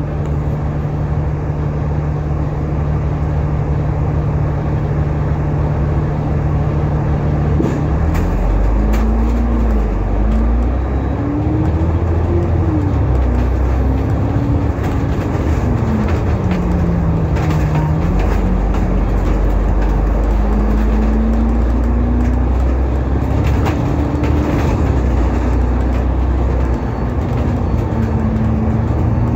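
Diesel engine of an Alexander Dennis Enviro500 MMC double-decker bus, heard from inside the bus. It idles steadily, then about seven seconds in the bus pulls away. The engine note rises and falls repeatedly as it accelerates and changes gear.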